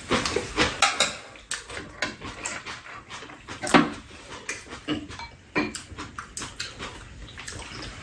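Close-up eating sounds at a meal: noodles slurped and chewed, with metal chopsticks and spoons clicking irregularly against bowls and a metal tray.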